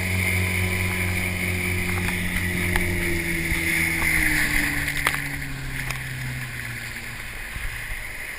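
Motorboat engine running at speed with water rushing and splashing along the hull. From about three seconds in, the engine note falls and the sound eases off as the boat throttles back.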